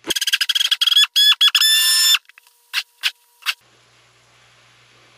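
Hand-held immersion blender pulsed on and off in a bowl of liquid ice cream base, mixing in powder floating on top: a high motor whine chopped into a rapid run of short bursts for about two seconds, then three brief blips a little later.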